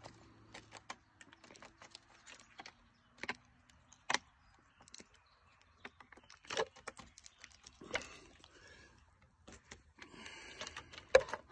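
An animal eating biscuits: irregular sharp taps and crunchy clicks, a few louder ones spread through, with faint rustling near the end.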